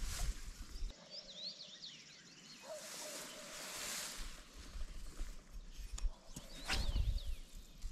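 Small birds chirping in short rising-and-falling calls, with a brief noisy rush a few seconds in and a couple of sharp clicks near the end.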